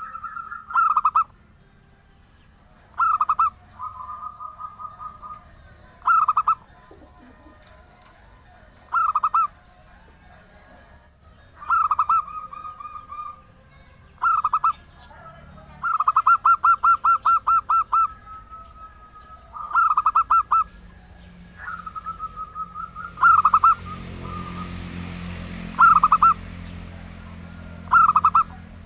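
Female zebra dove (perkutut) cooing a lure call to males: short, loud phrases of rapid stuttering coos every two to three seconds, with softer trilled coos between them and one longer run of quick notes partway through.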